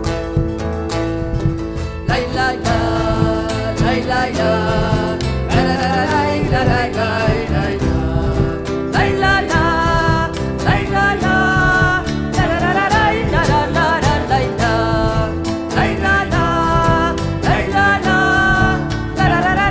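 Live Argentine folk music: an instrumental interlude between verses, with acoustic guitar strumming the accompaniment and a lead melody entering about two seconds in.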